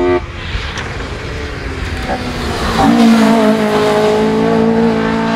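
Race-tuned 2-litre 16-valve four-cylinder engine of a 1979 Opel Kadett C hillclimb car. At first there is only a rushing noise with no clear engine note. About three seconds in the engine comes in loud and close, held at high revs with a steady note.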